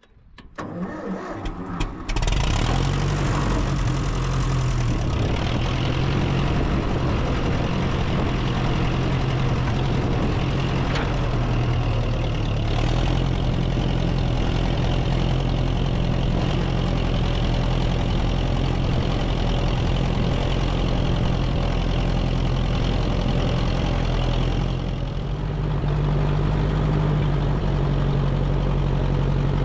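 Massey Ferguson 35 petrol tractor engine catching about two seconds in, then running steadily while pulling a single-furrow plough. Its note dips and changes briefly about 25 seconds in.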